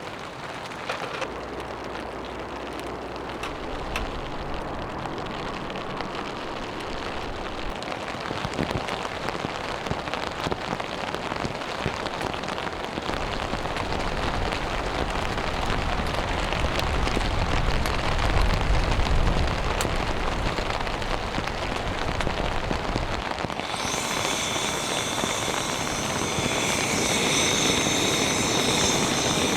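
Steady rain, slowly growing louder, with a low rumble under it. About 24 seconds in, the sound changes suddenly to a brighter, hissier texture.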